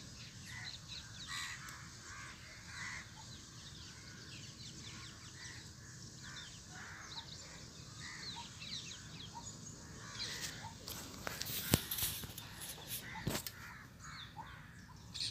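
Birds calling in the background, many short chirps. From about ten seconds in, a plastic mailer bag rustles as it is handled, with a couple of sharp clicks.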